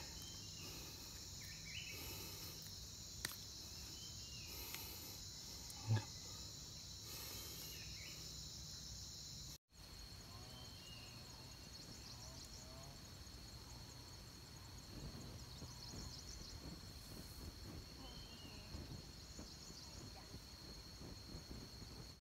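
Steady, high-pitched insect chorus, with a few faint chirps and a soft bump about six seconds in.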